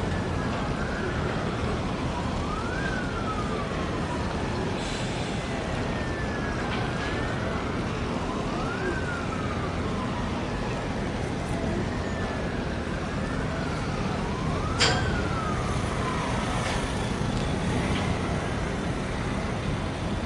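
A siren wailing, its pitch rising and falling every couple of seconds, over a steady low rumble. One sharp click sounds about three-quarters of the way through.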